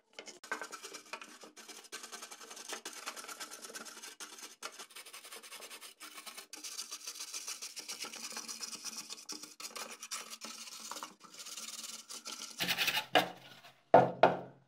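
Steel wire hand brush scrubbing grime off the juicer's plastic housing in rapid back-and-forth strokes. Near the end come a few louder knocks and clatters from parts being handled.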